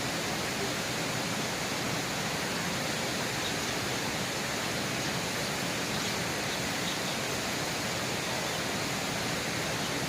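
Steady rushing of flowing water in a small river, an even hiss at a constant level.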